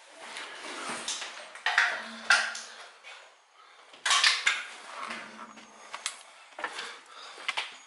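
A wooden door being pushed open, creaking twice on its hinges, among scuffing footsteps and knocks on a gritty floor.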